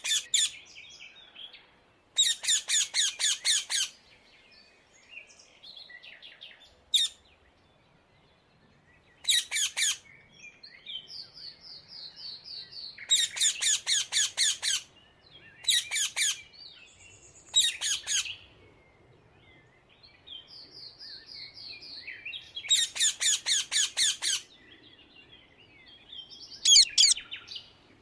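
Rose-ringed parakeet (Indian ringneck parrot) calling: bouts of shrill notes repeated rapidly, each bout lasting a second or two, about seven times with short gaps, and fainter calls in between.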